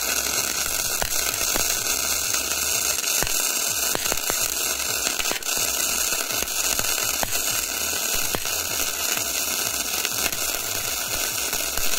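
Steady crackling hiss of a semi-automatic (MIG) welding arc from an EENOUR MIG120L 100-volt welder laying a continuous bead.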